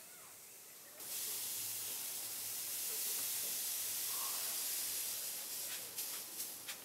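Grain pouring from a tipped woven bamboo basket into a jute sack: a steady rushing hiss that starts suddenly about a second in, then thins to a scatter of ticks from the last grains near the end.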